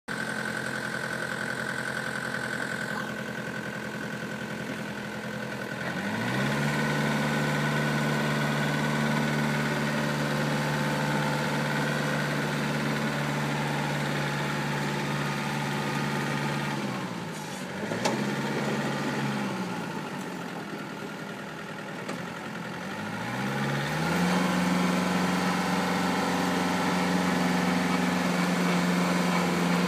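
Kubota compact tractor's diesel engine running, its revs raised about six seconds in and held steady. The revs drop back past the middle, rise and fall briefly, then climb again and hold for the last few seconds. A single sharp click comes just after the revs drop.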